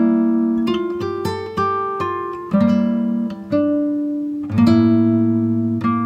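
Background music on acoustic guitar: plucked chords and notes struck roughly once a second, each left to ring and fade.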